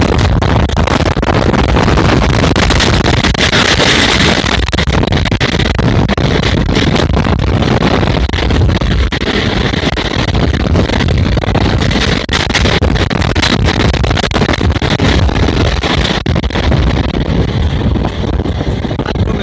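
Wind rushing over a phone microphone held out of a moving train's window, over the steady running rumble of the train, with frequent short knocks.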